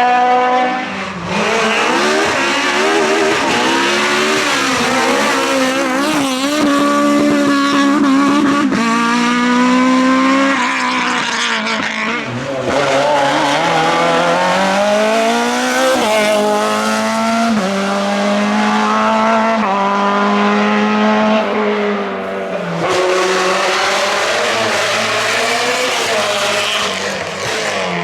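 Naturally aspirated Group F2000 rally car engines at full attack, the pitch climbing hard and then dropping again and again as the cars accelerate, shift and brake, with several abrupt breaks in the sound.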